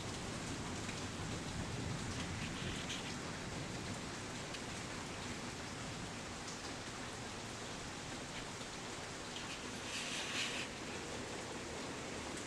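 Steady rain falling during a thunderstorm, an even hiss of rain on surfaces, with a brief louder spatter about ten seconds in.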